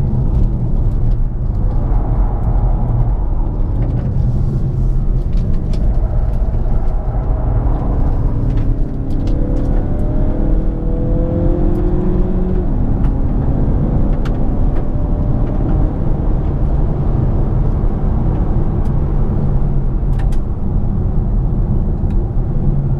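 In-cabin sound of a 2017 Mazda 6's 2.5-litre four-cylinder engine over steady road and tyre rumble. From about a third of the way in, the engine pitch rises as the car accelerates, then drops back about halfway through as the six-speed automatic upshifts.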